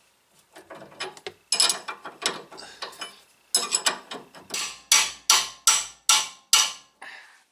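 Hand-worked ratcheting metal tool on a car: scattered metallic clicks, then a run of about six even strokes, roughly two and a half a second, in the second half.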